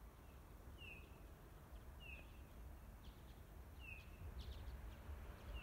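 A small bird giving short, downward-slurred call notes, one every second or two, faint over a low rumble that grows slightly louder toward the end.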